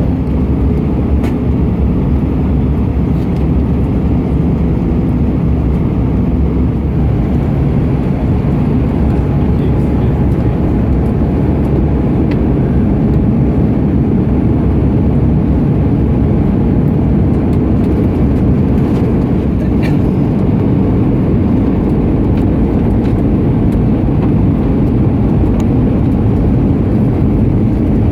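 Steady cabin noise inside an Airbus A320 in flight: the even rumble of the engines and airflow, with no sudden changes.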